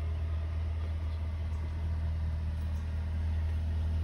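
Steady low mechanical hum, like a motor or engine running at a constant speed, unchanging throughout.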